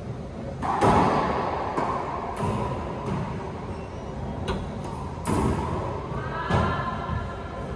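Racquetball cracking off racquets and the court walls, about six sharp hits that echo around the enclosed court. The loudest comes about a second in, and two more strong ones follow later.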